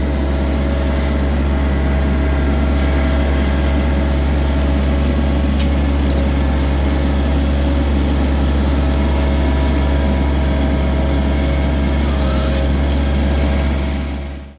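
John Deere 1023E compact tractor's three-cylinder diesel engine running steadily at an even speed.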